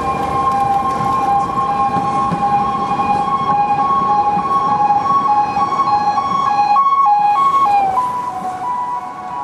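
Tatra T3 tram passing close by, giving a loud steady high two-tone whine over the rumble of its wheels on the rails. The tones waver and shift slightly lower about eight seconds in as the tram moves away and the sound eases.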